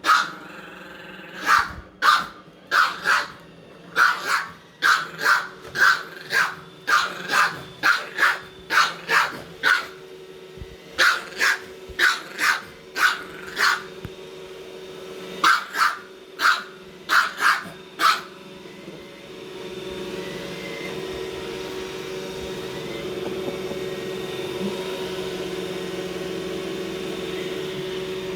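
A dog barks repeatedly at a running Roomba robot vacuum, about one to two barks a second in runs with short pauses. The barking stops about eighteen seconds in, leaving the robot vacuum's steady hum.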